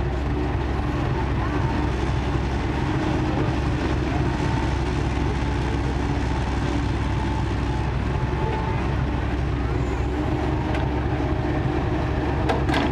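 Kobelco hydraulic excavator's diesel engine running steadily under working load, with a few faint clicks near the end.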